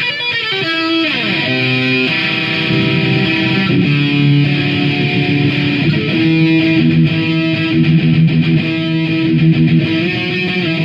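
Electric guitar playing a riff of held notes and chords, with notes sliding down in pitch about a second in.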